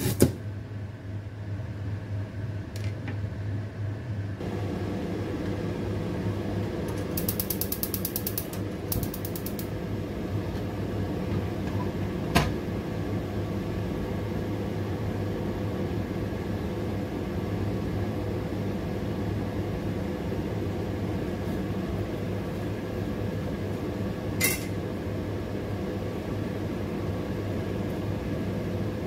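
A kitchen knife chops through ginger onto a plastic cutting board right at the start. Then a stove runs with a steady hum and hiss under a pot of water being heated, with a quick run of fine ticks about seven to nine seconds in and two single clicks later.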